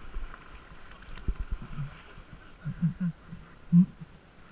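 Quiet river water and paddle noise around an inflatable whitewater raft drifting on flat water, with several dull bumps and knocks, the loudest one near the end.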